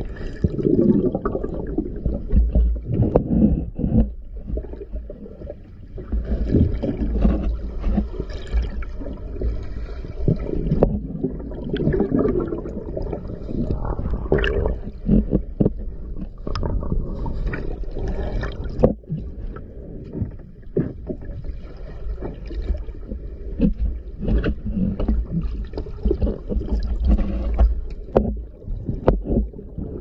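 Scuba diver breathing through a regulator underwater: hissing inhalations alternating every few seconds with bubbling, rumbling exhalations, with scattered small clicks and knocks of gear.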